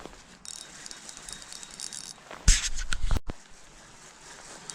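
Fishing reel working against a hooked steelhead: a high hiss from the drag and line for about two seconds, then loud bumps and rattling from the rod and reel being handled about two and a half seconds in.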